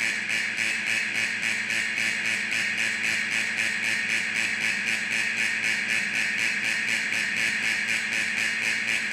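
Factory alarm sounding continuously: a harsh, high-pitched, rapidly pulsing ring that keeps an even level.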